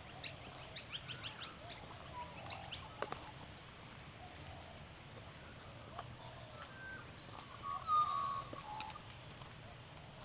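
Birds chirping outdoors: a quick run of short, sharp chirps in the first few seconds, scattered quieter calls after that, and a brief louder call about eight seconds in.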